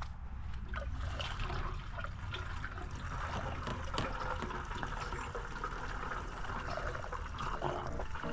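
Fuel being poured into the mini bike's fuel tank, a steady pour.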